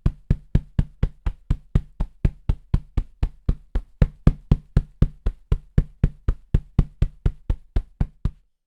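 A hand striking a large sofa cushion quickly and rhythmically, a little under four dull thuds a second at a steady rate, as foley for a helicopter's rotor beats. The strikes stop near the end.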